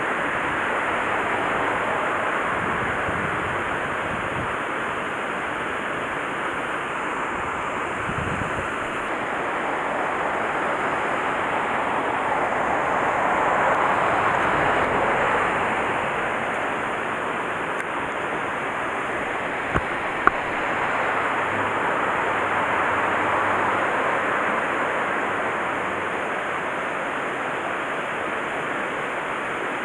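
Steady rush of water pouring from a culvert outlet into a concrete channel. Two short sharp clicks sound about two-thirds of the way through.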